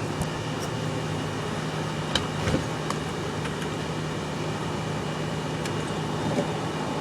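Steady background hum with a low drone, and a few light clicks about two to three seconds in.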